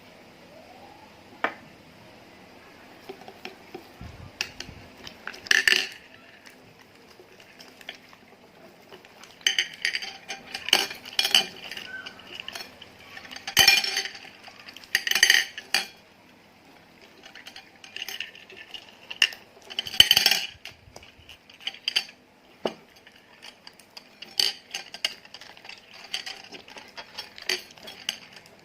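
Slime being mixed: irregular short clicks and pops coming in clusters, with some clinks like a tool knocking against the container.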